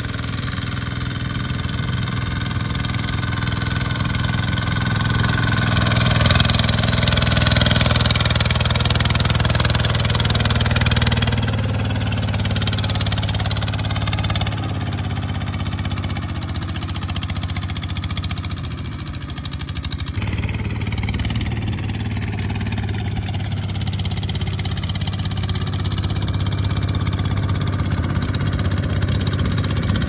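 Single-cylinder diesel engine of a two-wheel walking tractor running steadily while pulling a trailer loaded with rice sacks through a muddy paddy, growing louder for several seconds about six seconds in and dipping briefly past the middle.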